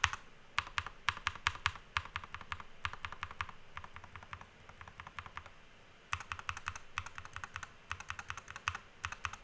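Keys with Akko Glare magnetic switches on a Monsgeek M1 V5 TMR keyboard being pressed in quick runs of clicks, several a second, with a lull about four to six seconds in. The keys are being tapped to compare the rattle of a stock, unlubed switch with a lubed one.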